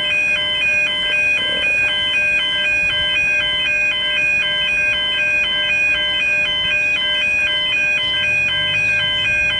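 Railway level crossing bells ringing continuously, striking evenly about three times a second: the warning that a train is approaching.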